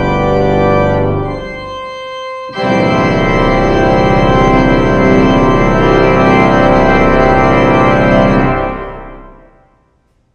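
Pipe organ playing the close of a piece: a softer chord, then about two and a half seconds in a loud full final chord with deep pedal bass, held for about six seconds and then fading away.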